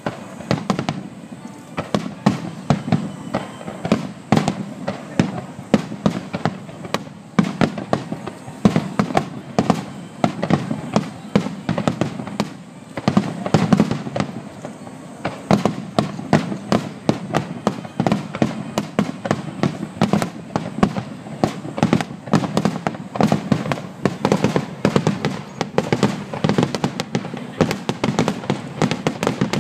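Aerial firework shells bursting in a dense, continuous barrage: many sharp bangs a second, overlapping one another.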